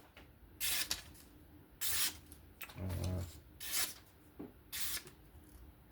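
Knife blade drawn along a leather strop loaded with stropping compound: four short rasping strokes, about one a second, with a soft low thump about halfway through.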